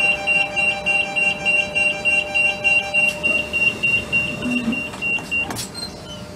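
Door-closing warning of a Renfe Cercanías commuter train stopped at the platform: a high electronic beep pulsing about three times a second for some five seconds, stopping abruptly, followed by a sharp knock.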